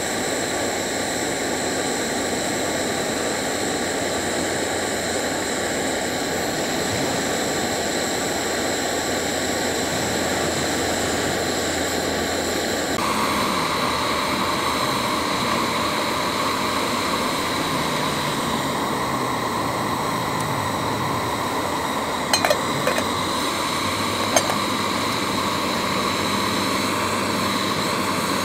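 Soto WindMaster canister gas stove burning at full flame under a covered pot: a steady hissing roar, its tone shifting about halfway through. Near the end there are two or three short, sharp metal clinks.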